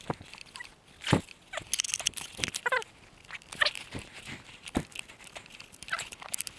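Someone pushing through dense brush on foot: twigs and branches cracking and snapping and foliage rustling in irregular sharp bursts, the loudest crack about a second in.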